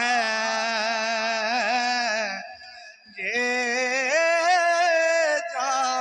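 A man singing an Urdu naat unaccompanied, drawing out long ornamented notes that waver in pitch. The voice stops about two and a half seconds in and comes back with another long held phrase.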